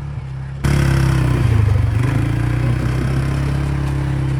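A motor vehicle's engine running steadily at low pitch. A little over half a second in, it turns abruptly louder and a rushing, rattling noise joins it.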